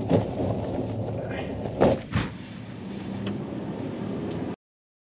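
A car driving on a mountain road, heard from inside: a steady low road-and-engine rumble with three sharp knocks from bumps, the loudest a little under two seconds in. The sound cuts off suddenly about four and a half seconds in.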